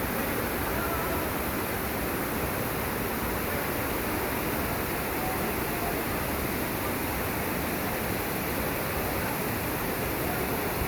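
Waterfall running: a steady rushing of falling water, even throughout with no breaks.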